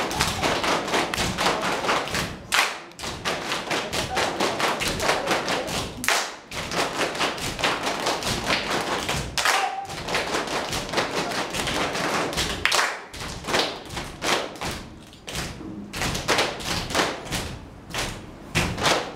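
Group step dance: many feet stomping on a hard stage floor together with hand claps, in a steady quick rhythm with a few louder accented hits.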